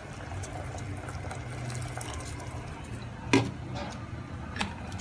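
Pot of pork adobo simmering on the stove, a steady low bubbling. A sharp knock comes a little over three seconds in, with a lighter one near the end.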